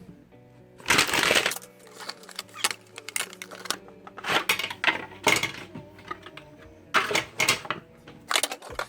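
Handling noises: sharp clicks, clatter and rustles, with louder bursts about a second in, around four to five seconds and near seven seconds, over faint background music.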